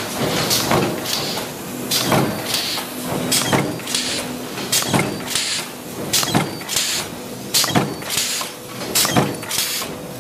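Several mechanical power presses stamping steel parts for concealed cabinet hinges, giving uneven sharp metal strikes about twice a second over a steady machine hum.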